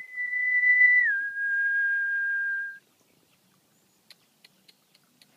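A person whistling to a pet peacock to get it to call: one pure, steady whistled note held for about a second, then a quick step down to a lower note held for nearly two seconds before stopping. A few faint ticks follow near the end.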